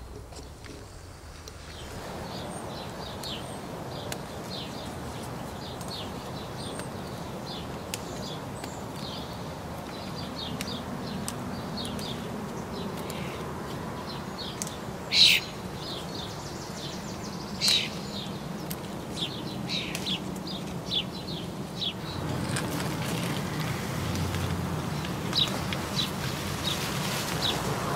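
Small birds chirping over and over, with an even outdoor background noise. Two louder, sharp chirps or clicks stand out about halfway through.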